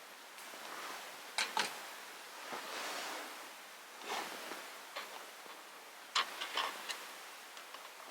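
Wood campfire crackling, with a handful of sharp pops and snaps over a soft rushing hiss that swells and fades.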